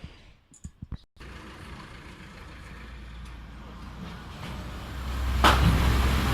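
Ladder-type concrete mixer's machinery starts suddenly about a second in and runs with a steady low hum and hiss that grows louder, swelling into a loud rush near the end.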